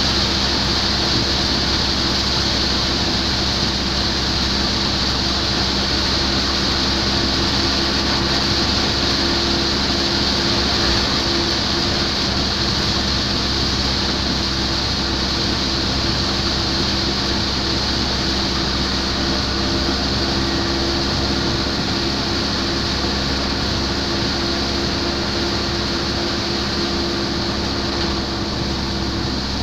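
Heavy rain and the hiss of tyres on a wet road, with a steady engine drone underneath, from a vehicle driving through a downpour.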